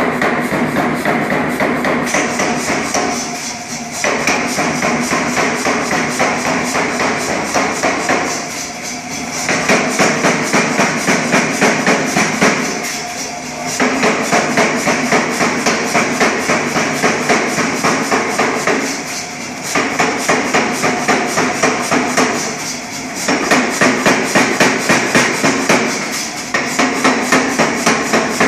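100 lb Reiter air hammer striking a glowing bar of 1045 steel in runs of rapid blows. Each run lasts a few seconds, with brief pauses between runs, and the machine keeps up a steady hum throughout.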